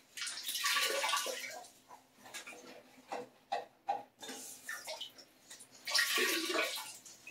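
Water splashing and trickling in two spells of a second or two each, with small knocks and clicks between, as the leftover water in a flushed, drained toilet tank is mopped out with a rag.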